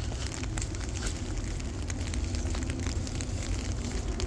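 Rain falling, with many irregular sharp ticks of drops hitting a surface over a steady low rumble.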